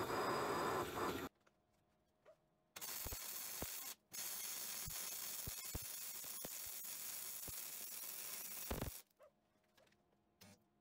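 A drill press boring into steel plate, cut off about a second in. After a short pause, MIG welding: a steady hiss with scattered pops for about six seconds, with one brief break.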